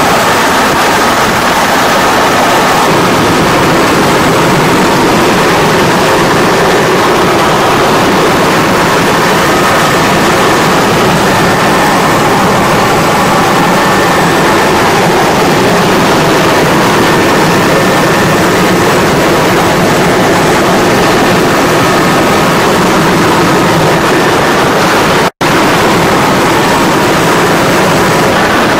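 Helicopter turbine engines and rotor running loud and steady in a hover, heard from inside the cabin at the open door. The sound cuts out for an instant near the end.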